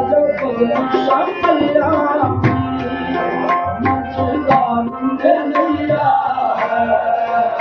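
Live qawwali music driven by tabla drumming, with deep bass strokes, over sustained harmonium notes.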